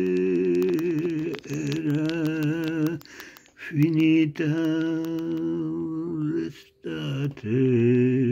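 An elderly man singing unaccompanied, holding long notes with a wavering vibrato in three drawn-out phrases, with short breaths between them about three and a half and seven seconds in.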